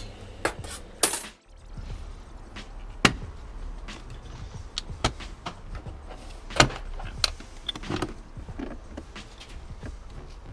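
Scattered sharp plastic clicks and knocks as the airbox cover on a BMW 335d's engine is unclipped and handled, over a low steady rumble.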